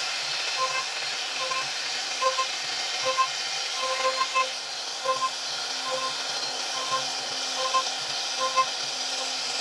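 CNC router spindle carving wood: a steady hiss and whine from the cutter, under background music of short repeated notes.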